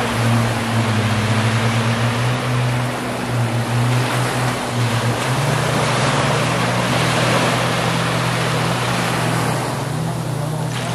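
Jet ski engines running offshore, a steady drone whose pitch shifts about halfway through, over small waves washing and breaking on a sandy shore.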